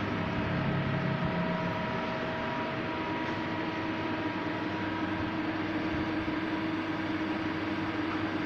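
Star CNC lathe running steadily: an even mechanical hum and hiss with several held tones. A lower tone drops out about a second and a half in, and a new, stronger one settles in about three seconds in.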